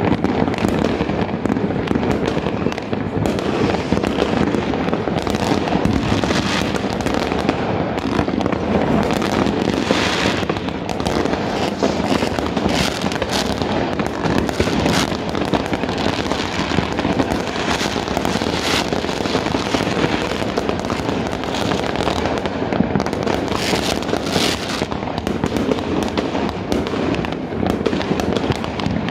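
Many fireworks, near and distant, going off at once: a continuous din of bangs, pops and crackles with no break.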